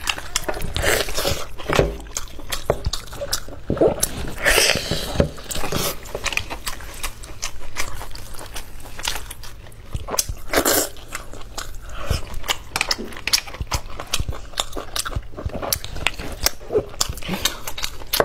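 A person biting and chewing a tomahawk steak, with many irregular short wet clicks and crunches of eating throughout.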